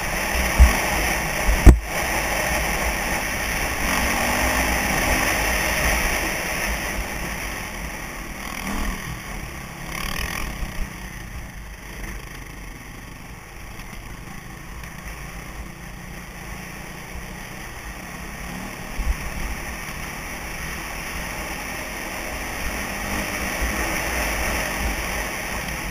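KTM enduro dirt bike engine running on a trail ride, heard from a helmet-mounted camera with wind rush. It is louder for the first several seconds, then quieter. There is a sharp knock about two seconds in and a few lighter knocks later.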